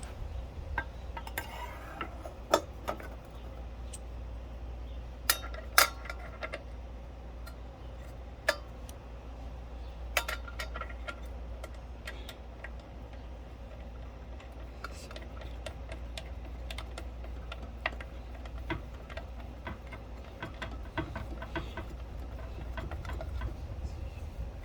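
Scattered metallic clicks and clinks of hand tools on a circular saw while its blade and arbor bolt are fitted and tightened, with a few louder clicks, over a steady low hum.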